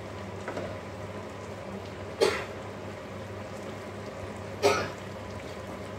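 Stew simmering in an aluminium pot on the stove, a steady low noise, with two short sharp sounds about two seconds and four and a half seconds in.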